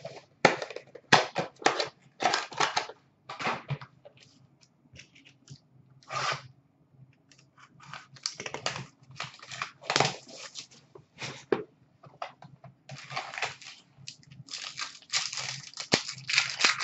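Plastic wrapping on a trading card pack being torn and crinkled by hand, and the cards inside rustling as they are handled, in irregular bursts with a few sharp clicks.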